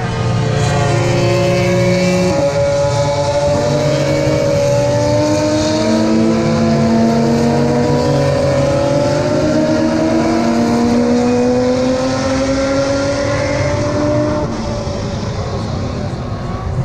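Several 2022 Formula 1 cars' 1.6-litre V6 turbo-hybrid engines running at once on the circuit, their overlapping engine notes rising and falling as they change speed and gear.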